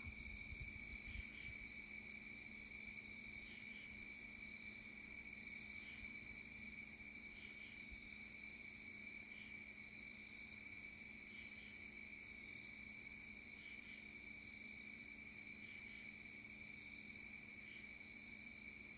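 A steady, high-pitched trill of night insects, crickets, running without a break, with a faint low hum underneath.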